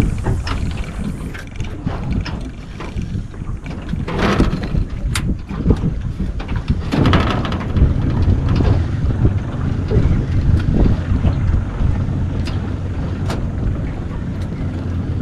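Wind buffeting the action camera's microphone aboard a small boat at sea, a steady low rumble. Scattered sharp clicks run through it, with louder noisy bursts about four and seven seconds in.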